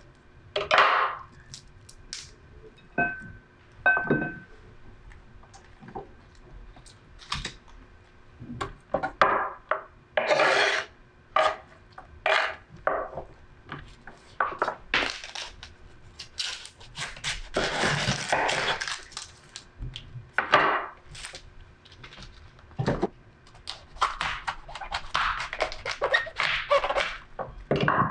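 Kitchen knife cutting cauliflower on a wooden cutting board: irregular knocks of the blade on the board, with a few longer cuts through the stalks.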